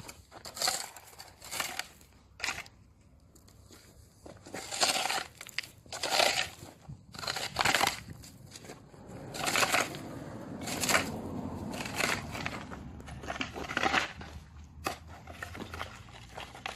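A shovel working soil and gravel, backfilling a trench over a buried water pipe, in a series of separate scrapes and pours every second or two.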